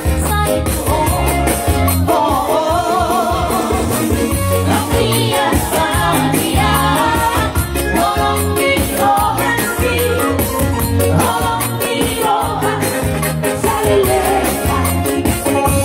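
Live Batak song played on an electronic keyboard, with a steady bass and drum beat under a wavering melody line, and singing.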